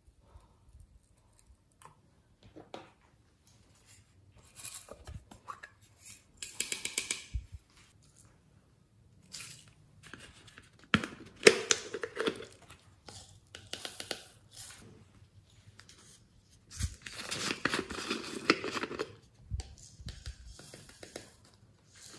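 Small plastic containers and packets rustling, crinkling and clicking as they are handled and emptied over a tray of white slime, with glitter and sequins sprinkled in. The sounds come in separate bursts, the longest lasting about two seconds.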